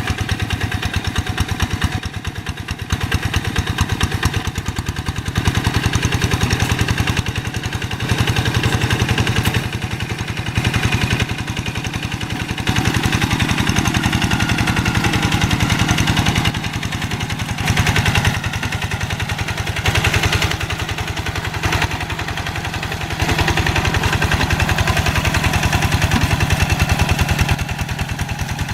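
Quick G1000 hand tractor's diesel engine running continuously, with rapid, even firing pulses as it works through deep paddy mud. Its loudness steps up and down several times.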